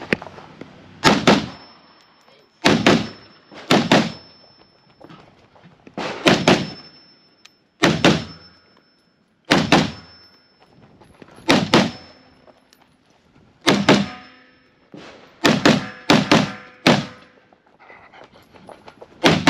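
AR-15 rifle shots fired in quick pairs (double taps), a pair every couple of seconds with short gaps between, each shot with a brief echo; a tighter run of shots comes near the end.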